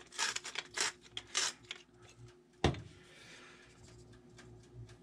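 Salt grinder being twisted by hand: a few short grinding strokes about every half second, then a single knock just past halfway as it is set down on the counter.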